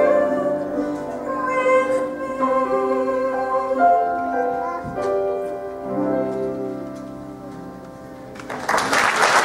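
Closing bars of a woman's song with piano accompaniment: a last sung phrase over sustained piano chords that fade away, then applause breaks out near the end.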